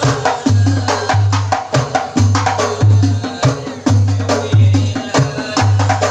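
Hadroh percussion ensemble playing a fast, interlocking rhythm: sharp slaps on frame drums (rebana) over deep, repeating booms from a bass drum.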